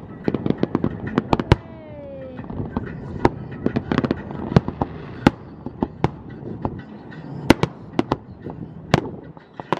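Aerial fireworks display: a rapid, irregular run of shell bursts, sharp bangs and crackles with no let-up. A brief falling tone sounds about two seconds in.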